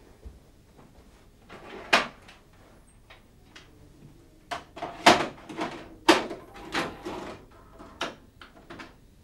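A run of irregular knocks and clatters, about ten in all, the loudest about two, five and six seconds in, like objects being handled or a door and furniture being moved.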